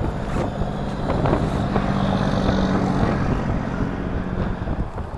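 A motor vehicle passing on the highway: engine and tyre noise with a low steady hum, swelling about a second in and fading near the end.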